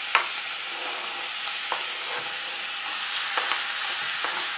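Cubed raw chicken sizzling steadily as it goes into hot oil with onion and garlic in a stainless steel pan, with a few light knocks as pieces are pushed off a plastic cutting board into the pan.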